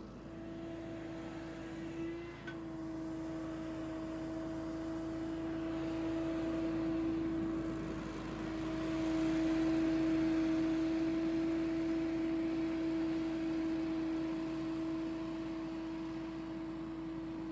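Billy Goat P2000 stand-on Hurricane leaf blower running and blowing, a steady whine over a rush of air. It grows somewhat louder about ten seconds in.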